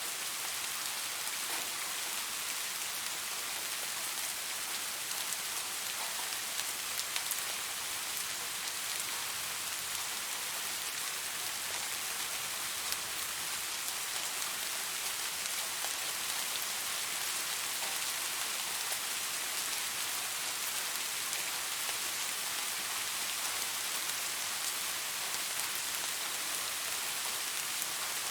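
Steady rainfall, a dense even hiss of raindrops with faint individual drop ticks pattering through it.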